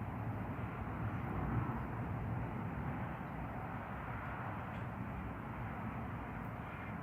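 Thunderstorm: rain falling steadily, with a low, even rumble underneath.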